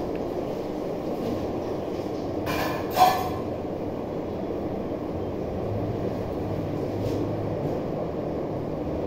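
Steady low rumbling background noise, with one brief sharp clatter about three seconds in.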